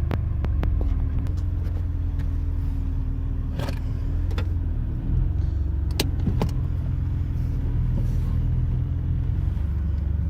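BMW E32's six-cylinder M30 engine idling steadily, with a few sharp clicks over the low running sound.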